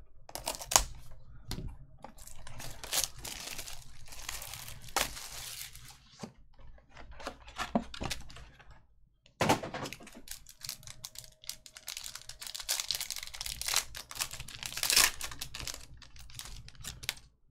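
Cardboard trading-card box being torn open along its pull strip, then foil card-pack wrappers crinkling as they are handled. The sound comes in repeated spells of tearing and crinkling with small clicks, loudest a little past the middle and again near the end.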